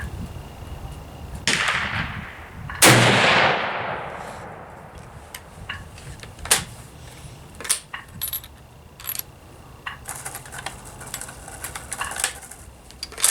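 A single shot from a Yugoslav M24/47 Mauser bolt-action rifle firing 8mm Mauser, ringing out and fading over about a second and a half, with a quieter bang about a second before it. Afterwards come a string of short metallic clicks and clacks.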